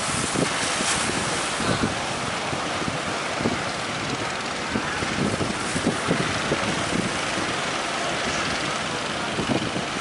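Steady rush of breaking surf, with wind buffeting the microphone in irregular low thumps.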